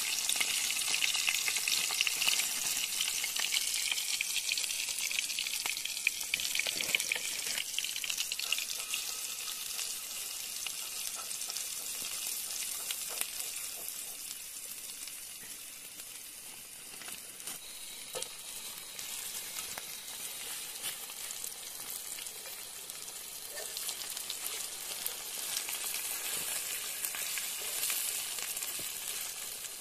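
Food frying, a steady sizzle full of fine crackles, dipping a little in the middle and picking up again near the end.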